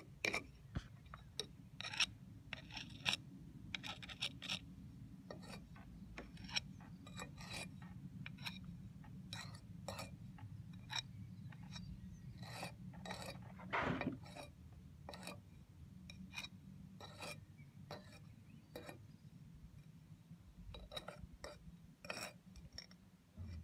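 Curved steel jointing iron scraping and rubbing along brickwork mortar joints, in many short, irregular strokes, with a steady low hum underneath.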